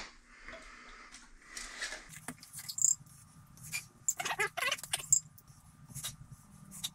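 Handling noises from plastic drain pipe work: scattered clicks and taps of plastic fittings, with a quick scratchy rustle about four seconds in.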